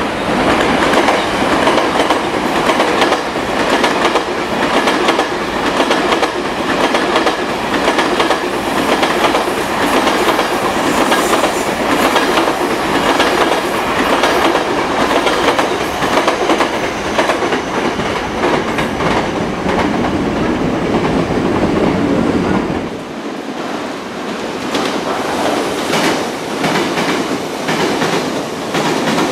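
JR Freight M250 Super Rail Cargo electric container train passing at speed, its wheels clattering over the rail joints in a steady rush of clickety-clack. About 23 seconds in, the sound changes abruptly to another pass of the same train, slightly quieter and with less deep rumble.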